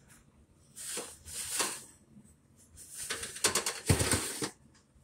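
Oven rack and metal baking pan rattling and clattering at an open oven. A scraping rustle comes about a second in, then a dense run of metal rattles with a heavy knock near the end.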